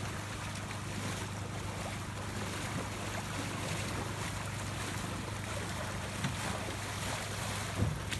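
Floodwater sloshing and splashing around a person's legs as he wades and pushes a flat-bottom boat, over a steady low hum and wind on the microphone.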